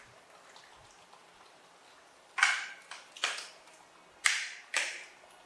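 A metal spoon clinking and scraping against plates of rice, four short, sharp strokes in the second half.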